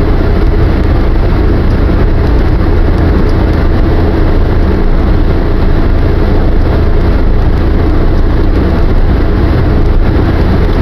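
Steady, loud cabin noise of a car driving at expressway speed: engine and tyre rumble with road noise.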